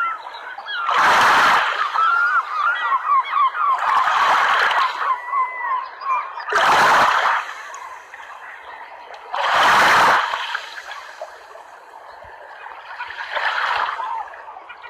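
Water birds calling in quick strings of short calls, over water splashing in five loud surges about every three seconds.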